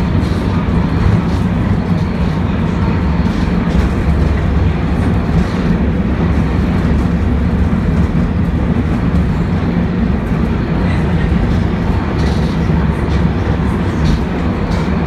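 Steady low rumble of a vintage M-24 tram car in motion, heard from inside the car as it runs along the street track.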